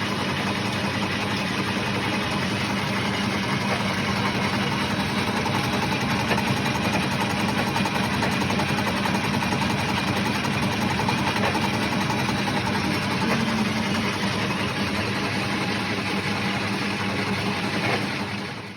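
A motor or engine running steadily with an even hum, cutting off abruptly at the end.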